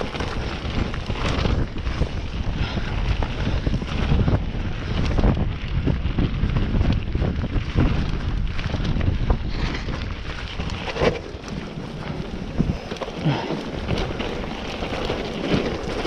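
Wind rushing over the camera's microphone and tyres rolling over a rough trail, with frequent knocks and rattles from a mountain bike descending at speed.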